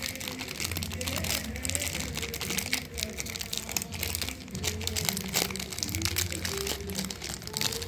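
Foil-lined plastic wrapper of a Gufa chocolate bar crinkling and tearing as it is pulled open by hand, a dense run of small crackles.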